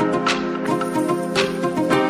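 Instrumental background music: soft sustained notes with a light high swish about once a second.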